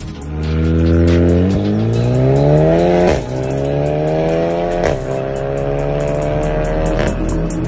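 Skoda Superb with a VVS titanium full exhaust accelerating hard through the gears. The engine note climbs steadily in pitch, then drops with a sharp crack at each upshift, at about three, five and seven seconds in.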